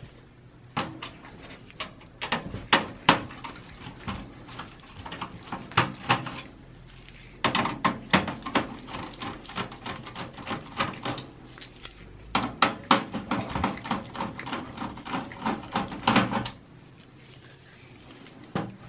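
Phillips screwdriver undoing screws in a steel PC case: runs of quick metal clicks and taps in three bursts, which stop about two seconds before the end.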